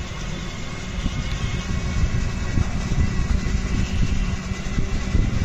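Road vehicle noise: a dense, uneven low rumble of traffic or a moving vehicle, with a faint steady high tone above it.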